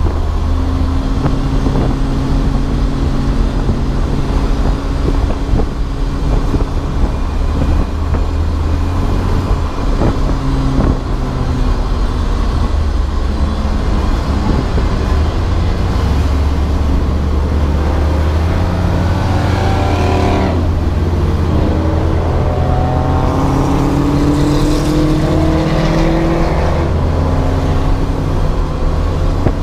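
Race car engine running hard at racing speed, heard from inside the car as a loud, steady drone. In the second half the pitch climbs a couple of times as it accelerates.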